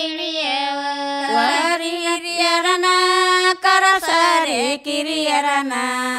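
Women singing a traditional Kannada shobhana pada folk song into microphones, in long held notes with sliding pitch.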